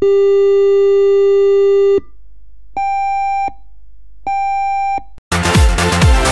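Fire station alarm signal: one long steady tone lasting about two seconds, then two shorter, higher beeps. Electronic dance music comes back in near the end.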